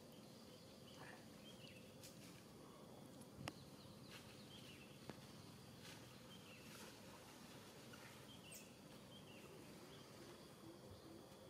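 Near silence: faint outdoor natural ambience with scattered small high chirps and two soft clicks near the middle.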